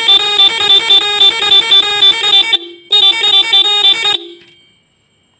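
Three 12 V motorcycle horns driven by a Roots melody-maker unit play one of its multi-tone patterns: loud, quickly alternating horn notes pulsing several times a second. The pattern breaks off briefly about two and a half seconds in, plays again, and stops about four seconds in.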